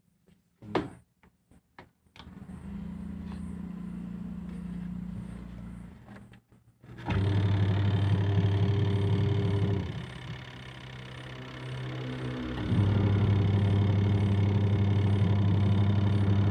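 Washing machine motor humming in on-and-off runs: a few clicks, a lower hum, then two louder runs of a few seconds each with a pause between, typical of the motor starting and stopping through a wash or spin cycle.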